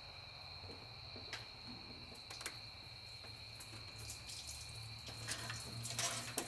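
Scattered light clicks and clinks of hands and tools on the metal parts of a Small Block Chevy 350's top end as a cylinder head is worked on, coming more often and louder near the end. Under them a steady faint high-pitched whine and a low hum.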